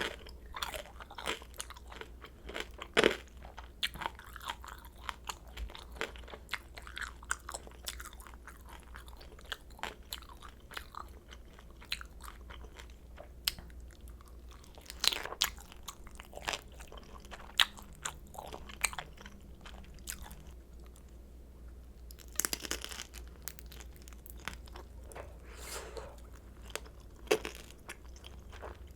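Close-miked chewing of crisp pan-fried kimchi dumplings: a steady run of sharp crackles and crunches, with a few louder bites along the way.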